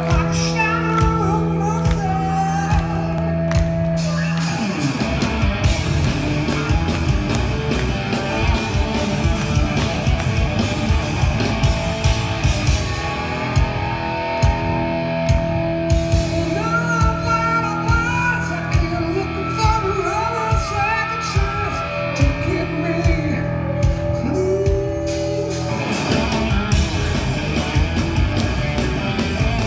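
Live rock band heard from the crowd in a large hall: electric guitar, bass guitar and drum kit with a male lead vocal. Held notes ring for the first few seconds, then the band settles into a driving beat.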